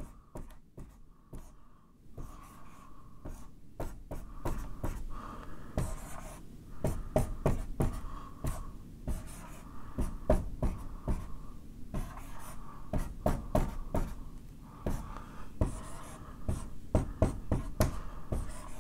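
Dry-erase marker drawing on a whiteboard: a run of short strokes and taps of the tip, faint for the first two seconds and then busier.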